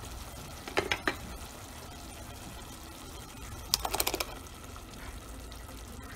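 A spoon scraping and tapping thick coconut paste off into a stainless steel pot of simmering onion and tomato: a few clicks about a second in, then a quick rattle of taps around four seconds in, over a steady low hiss from the pot.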